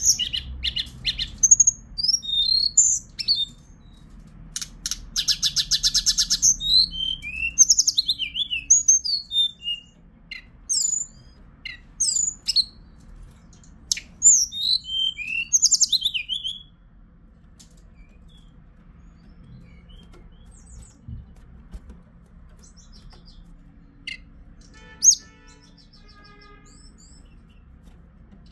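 A songbird singing a string of clear, high whistled phrases, many of them sliding down in pitch, with a fast rattling trill about five seconds in. After about seventeen seconds the song stops and only a few faint single notes follow.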